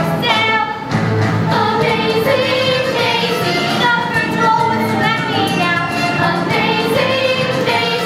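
A group of girls singing a musical-theatre song together over instrumental accompaniment.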